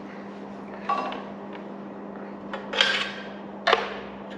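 Light metallic clinks and scrapes as an inspection probe is worked down a spark-plug hole of a Bristol Hercules radial engine. There are four or so short knocks, the loudest about three seconds in, over a steady low hum.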